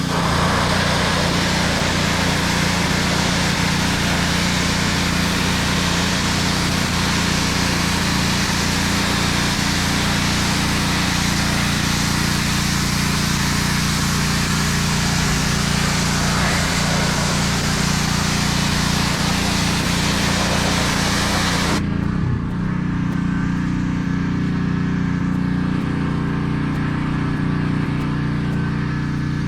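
Pressure washer's small engine running steadily under the loud hiss of the high-pressure spray. Near the end the spray cuts off suddenly and the engine keeps running on its own.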